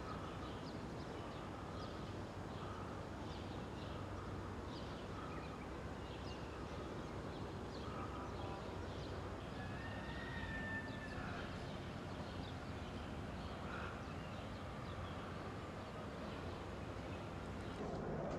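Outdoor ambience: frequent short bird chirps over a steady low background noise, with one longer, higher whistled note about ten seconds in.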